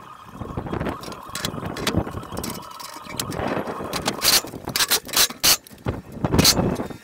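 Sharp knocks and clicks of steel scaffold tubes and fittings being handled, over a steady rumble. The knocks come singly at first, then several in quick succession in the second half.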